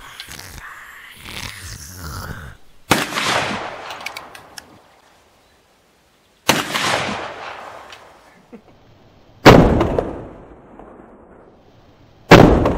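Four shots from a .44-calibre percussion over-under double rifle, each a sharp crack with a trailing rumble, spaced about three seconds apart. The last two are the loudest.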